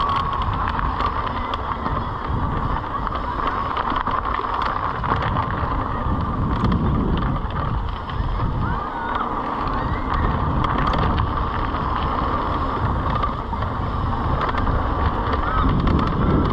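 Mountain bike riding down a dirt flow trail: wind rushing over the helmet-camera microphone, tyres rolling on gravelly dirt and the bike rattling and clicking over bumps, with a thin whine that wavers in pitch.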